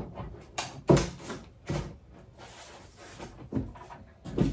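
A few short clunks and knocks of hard objects being handled and set down, the loudest about a second in.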